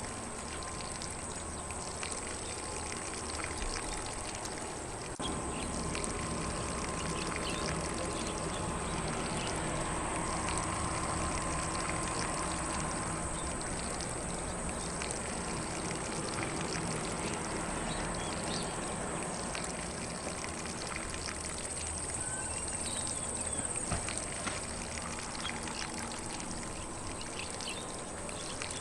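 Lawn sprinkler spraying water onto grass: a steady, even hiss and patter of falling water.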